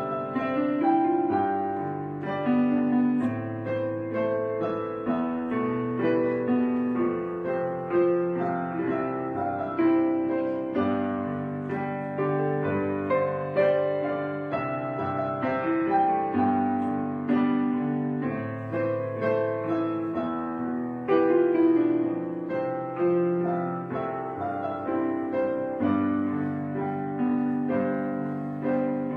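Piano music, with chords and sustained notes changing every second or two.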